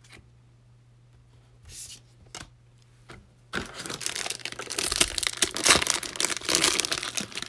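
Foil trading-card pack wrapper being torn open and crinkled: a few light handling rustles, then about four seconds of dense tearing and crinkling.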